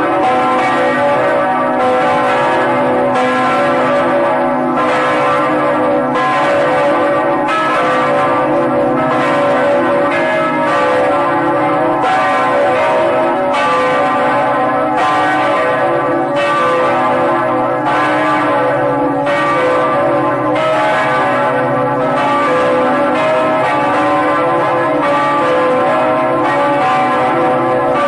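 Church bells pealing: a new stroke about every three-quarters of a second over the ringing of the strokes before, a dense, even ringing.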